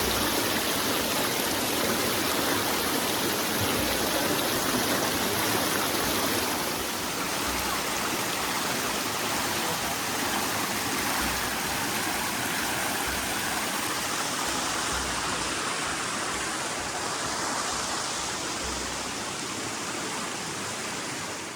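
Steady rush of flowing water from the spring's stream, a dense even hiss that drops slightly in level about seven seconds in.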